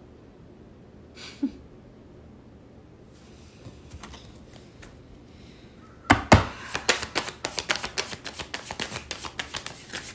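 A deck of cards being shuffled by hand: a rapid, uneven run of clicks that starts about six seconds in, after a quiet stretch.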